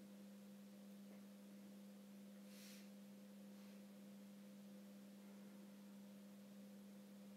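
Near silence: a faint steady low hum, with one short soft hiss about two and a half seconds in.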